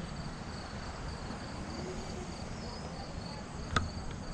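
Insects chirping in a steady run of short, high pulses over faint background noise, with one sharp click near the end.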